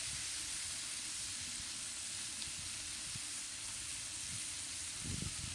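Thick onion-tomato spice paste frying in oil in a wok, a steady sizzle with fine crackling; the paste is well fried and the oil has risen to the surface. A brief low thud comes near the end.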